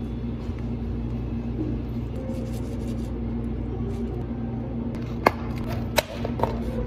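Steady low electrical hum from equipment, then two sharp plastic clicks about a second apart near the end as dome lids are snapped onto two plastic cups.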